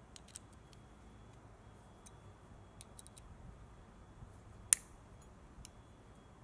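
Small metallic clicks and taps from a stepped pocket-hole drill bit, its stop collar and a hex key being handled against a plastic pocket-hole jig while the collar's depth is set. One sharp, loud click comes about two-thirds of the way through.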